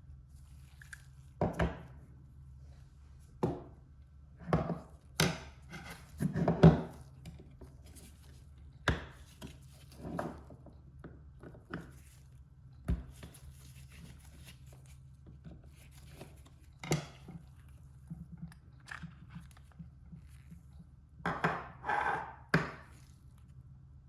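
Tools and small parts handled on a workbench: irregular knocks and clicks, some sharp and loud, a cluster of them about a third of the way in and another near the end, over a low steady hum.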